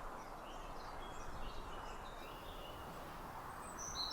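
Outdoor nature ambience: several birds chirping faintly over a steady, even background hiss, with a clearer high whistled bird call near the end.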